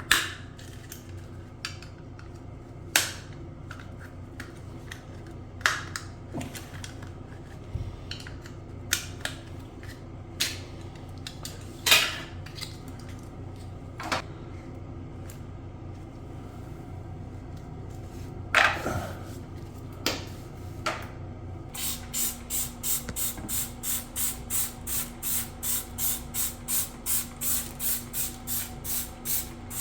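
Scattered clicks and knocks of parts being handled. About two-thirds of the way in, these give way to a sprayer spraying in quick even bursts, about two and a half a second, over a low steady hum.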